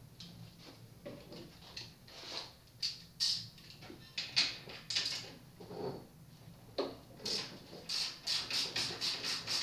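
Hand tools working on a mountain bike's rear wheel to take it off: scattered metal clicks and short scraping rasps, then near the end a quick, even run of clicks, about three or four a second.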